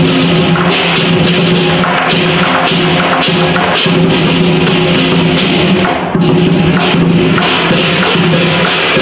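Chinese lion dance percussion: a drum with clashing cymbals and gong, playing a loud, steady beat.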